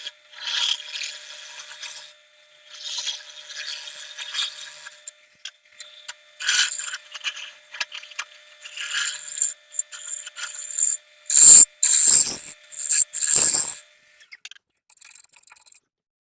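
A tool cutting or scraping wood in short, irregular bursts of rasping noise, with a faint steady hum underneath. The loudest, heaviest strokes come about three-quarters of the way in.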